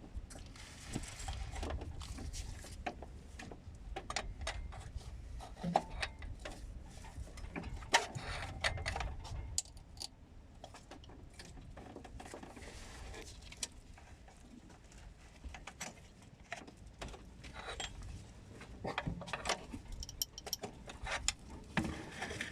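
Irregular clicks and knocks of hand tools and metal parts being handled during repair work, with the loudest knock about 8 s in and a quieter stretch in the middle.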